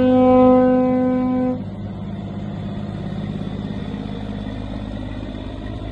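ERF lorry's horn sounding one long steady note that cuts off about a second and a half in, followed by the truck's diesel engine running steadily as it drives by.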